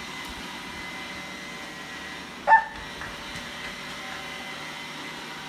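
One short, high yelp about two and a half seconds in, over a steady background hiss.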